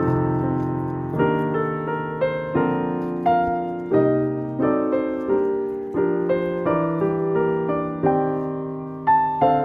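Background piano music: a slow melody over sustained low notes, each note struck and fading away.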